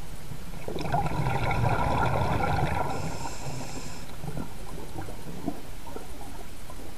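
Underwater sound of a scuba diver breathing through the regulator: a gurgling rush of exhaled bubbles for about two seconds from about a second in, then a low steady water noise.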